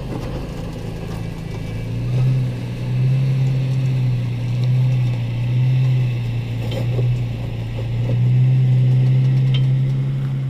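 Toyota Tacoma V6 engine pulling at low revs as the truck crawls up a rock ledge in a 99:1 crawl ratio (TacoBox single low). The engine note rises and falls in level several times.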